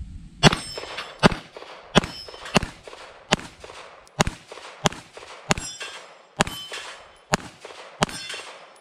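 Canik TP9SFx 9mm pistol firing about eleven shots at a steady pace, a little under a second apart, with a metallic ring after many of the shots.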